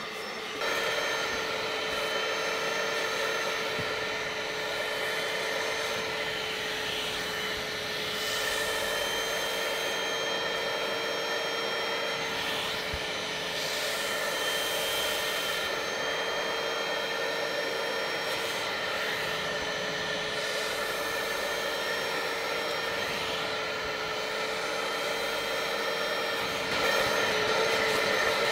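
Portable vacuum cleaner running steadily with a high motor whine, its upholstery nozzle drawn over a fabric car seat. It starts about a second in and grows a little louder near the end.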